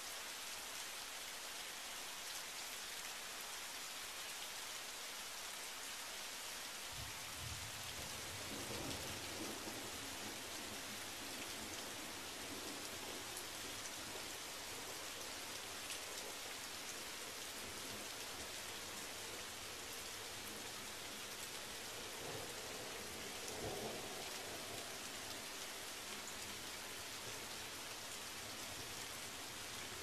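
Steady rain falling on pavement and shrubs, an even hiss. About seven seconds in, a low rumble of thunder comes in and stays, swelling twice.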